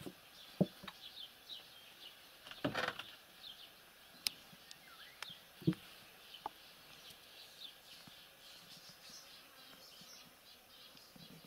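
Small birds chirping and twittering throughout, with a few scattered soft knocks and bumps.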